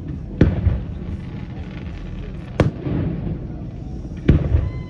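Fireworks display: three sharp bangs about two seconds apart, each followed by a rolling low rumble of echo.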